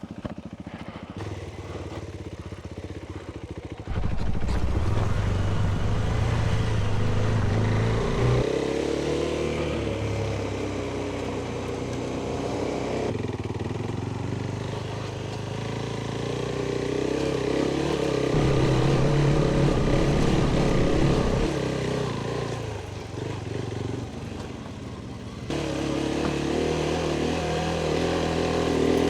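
Adventure motorcycle engine running on the move, the throttle rising and easing off. It gets much louder about four seconds in, eases off for a few seconds near the end, then picks up again.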